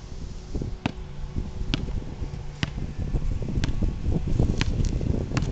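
A basketball dribbled on an asphalt driveway, sharp bounces about once a second. A low rumble of wind on the microphone builds up in the second half.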